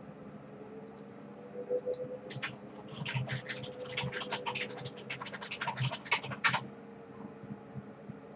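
Computer keyboard being typed on: a quick, irregular run of key clicks that starts about two seconds in and stops a little before the end, over a faint steady hum.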